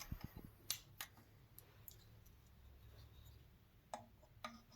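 Faint clicks and taps of a telescope's finder mount and its small screws being handled, two about a second in and two more near the end, over near silence.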